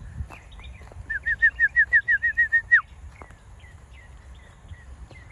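A songbird singing a quick run of about a dozen repeated whistled notes, roughly seven a second, ending on one longer falling note. Faint scattered chirps from other birds and a low steady outdoor rumble sit underneath.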